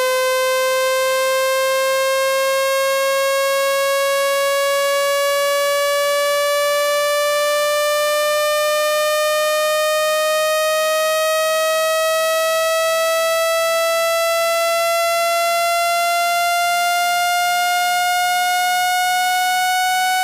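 Electronic speaker-cleaning tone, a single pitch with overtones, gliding slowly and steadily upward in pitch at constant loudness. It is the kind of tone played through a phone's speaker to shake water out of the grille.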